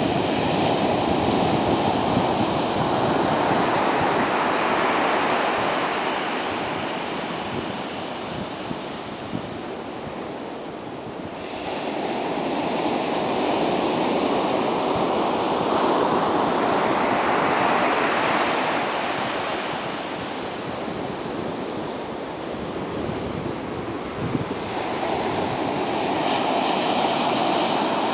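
Ocean surf breaking and washing up a sandy beach: a steady rush that swells and fades in long surges, about every twelve seconds.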